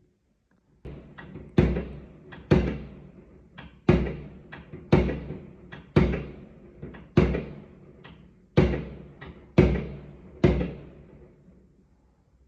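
Fireworks exploding: a run of sharp bangs, about one to two a second, each followed by a trailing rumble, starting about a second in and dying away near the end.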